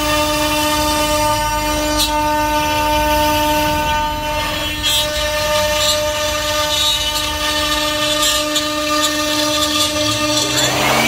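A machine motor running steadily with a whine made of several held tones over a rushing noise, with a few faint clicks; near the end its pitch sweeps and settles lower.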